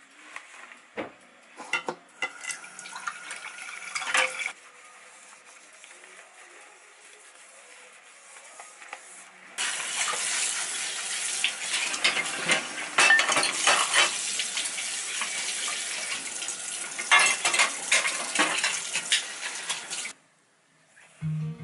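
Dishes being washed by hand in a stainless steel sink: crockery, a plastic container and chopsticks clink and knock. About ten seconds in, the tap is turned on and runs steadily while the dishes are rinsed under it with more clinks, then it stops shortly before the end.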